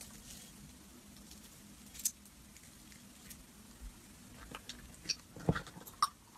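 Fingers squeezing and poking thick glittery slime, giving a handful of scattered sticky pops and clicks, one about two seconds in and most in the last two seconds.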